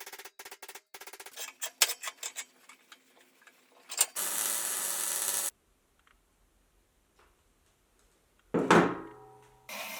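Hand-tool work on metal: a rapid choppy rasping, scattered clicks and knocks, and a short burst of hissing noise. About nine seconds in comes a loud metallic clang that rings out for about a second.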